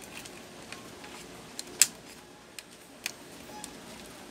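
Small plastic clicks and ticks from hands working at the print head carriage of an Epson L120 inkjet printer, about five sharp ones, the loudest about two seconds in.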